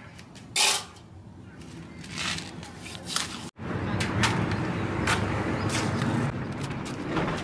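A hand trowel scraping and scooping wet cement mortar in a metal basin and setting it down on a flat metal sheet: a handful of short scrapes and knocks.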